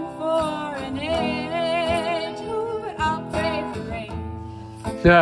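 Acoustic guitar strummed with a woman singing, a live folk song. A louder, wavering sung note comes in near the end.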